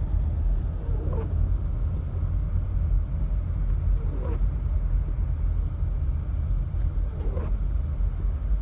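Steady low rumble of a car driving on a snowy road, heard from inside the cabin, with a windshield wiper sweeping across the glass about every three seconds.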